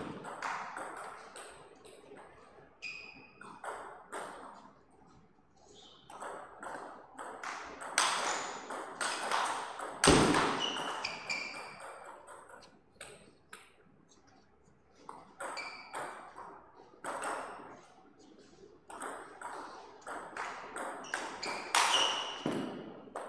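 Table tennis rallies: the ball clicking back and forth between the table and the players' rubber bats in quick runs, with quieter pauses between points. A heavier thud about ten seconds in is the loudest moment.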